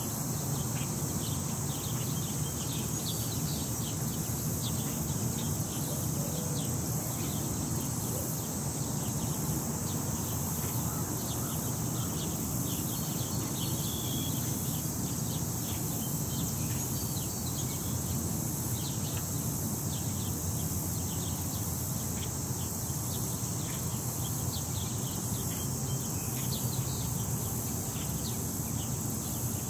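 Outdoor ambience: a low wind rumble on the microphone under a steady high-pitched hum, with many quick high chirps scattered throughout.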